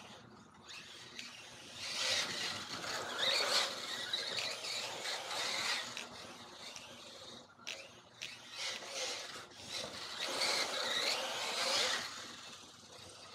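Electric-converted Mugen MBX8 1/8-scale buggy on a 4S LiPo: its electric motor and drivetrain whine, rising and falling as the car speeds up and slows. The whine is loudest in one spell a couple of seconds in and again near the end, with a lull in the middle.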